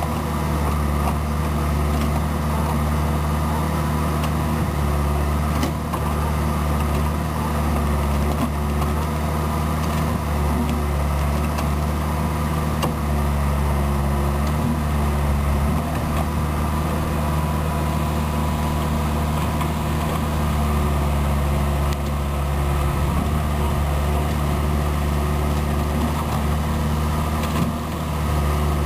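Excavator engine running steadily at a constant pitch, with a few faint knocks.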